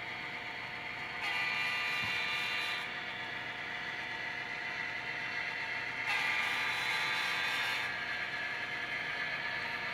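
HO scale model train running: a steady whir of the locomotive motor and wheels on the track, mixed with a sound decoder's electronic locomotive sound. It gets louder and brighter twice, for about a second and a half each time, once about a second in and again past the middle.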